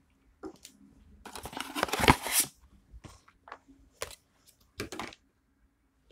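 White cardboard sample box and its packaging being torn open and handled: a longer tearing rustle about a second in, then a few short rustles and scrapes.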